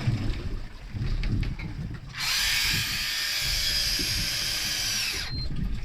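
Electric deep-drop fishing reel's motor winding in line, a steady high whine for about three seconds that dips slightly in pitch as it cuts off, over low wind and boat rumble.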